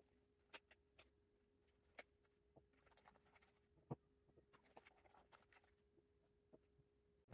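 Faint, scattered small clicks and rustles of cotton swabs being taken from a cardboard box and dropped into a small glass jar, with one sharper tap about four seconds in, over a faint steady hum.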